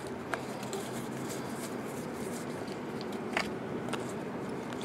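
Stack of baseball trading cards being flipped through by hand, the cards sliding and rubbing against each other, with a few light clicks as edges catch.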